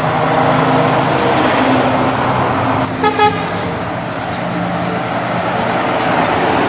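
Heavy diesel tanker trucks driving past with engines running. A quick double horn toot sounds about three seconds in.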